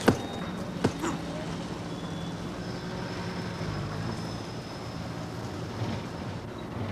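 A sharp thud of a kick at the very start and a second, lighter thump about a second in, followed by a steady low drone of vehicle engines.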